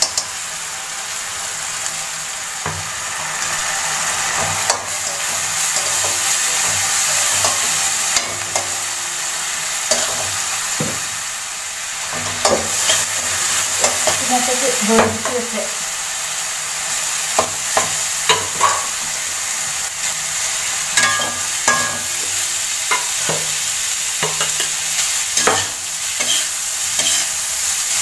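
Egg fried rice base of chopped vegetables and soy sauce sizzling in hot oil in a metal kadai, stirred with a metal spatula that scrapes and clicks against the pan. The scraping strokes come more often in the second half.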